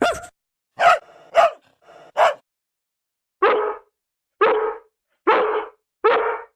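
Dog barking: four quick, sharp barks in the first couple of seconds, then a steadier run of four barks about one a second.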